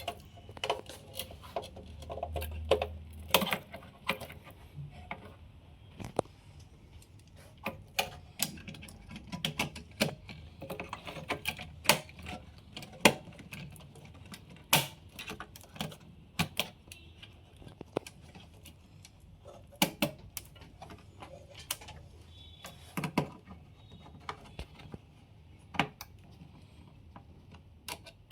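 Irregular sharp clicks and taps, about one or two a second, of metal and plastic server parts being handled and fitted into a rack server chassis.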